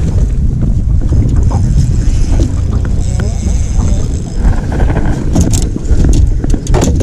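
Steady low rumble of wind buffeting the microphone on an open boat, with a few sharp clicks and knocks near the end.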